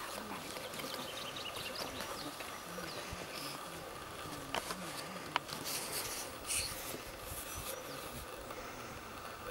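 Quiet outdoor ambience with an insect buzzing, faint high chirps scattered through, and two sharp clicks about a second apart near the middle.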